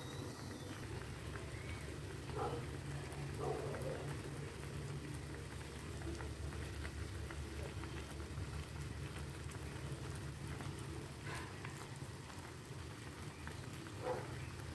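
Coconut-milk fish curry in a wok, just brought to the boil, bubbling and crackling faintly, over a steady low hum.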